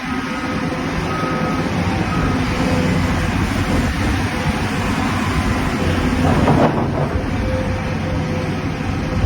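Heavy earthmoving machinery running steadily under load, with a brief louder, noisier rush about six and a half seconds in.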